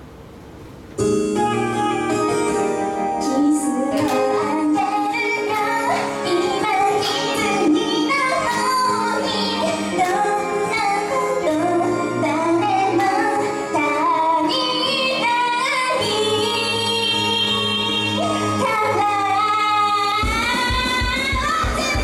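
A pop song's backing track starts abruptly about a second in, with a young woman singing the melody into a handheld microphone over it. A heavier low beat comes in near the end.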